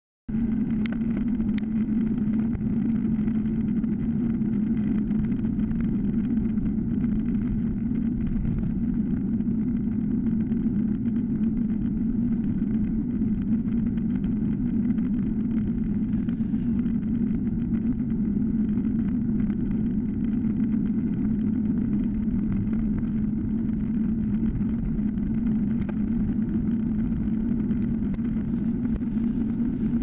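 Steady rolling noise of a time-trial bike on asphalt, with wind rushing over the handlebar-mounted microphone and a low steady hum. It cuts in abruptly just after the start.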